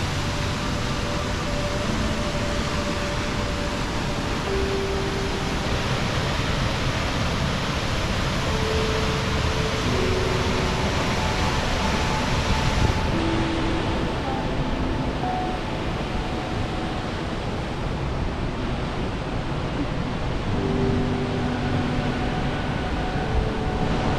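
Steady rushing noise with soft background music, whose held notes change pitch every second or so. About halfway through, the hiss loses its highest part.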